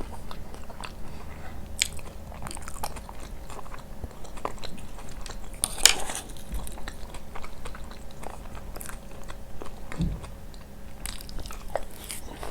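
Close-up chewing and biting of coarse kunafa nabulsiyeh, the crunchy shredded-pastry sweet with Nabulsi cheese. Many small crisp crackles and mouth clicks come through, with a sharper crunch about halfway and a soft thud a little later.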